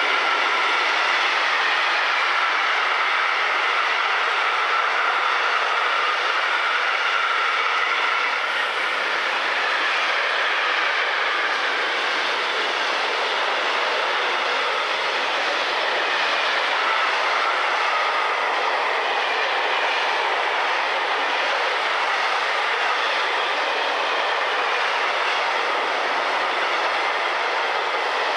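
Freight train wagons rolling past at speed: a loud, steady rush of wheel-on-rail noise, with faint high tones that waver in pitch above it.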